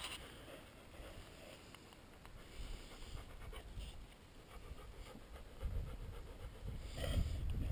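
Faint outdoor air with wind buffeting the camera's microphone, in low gusts that grow stronger near the end.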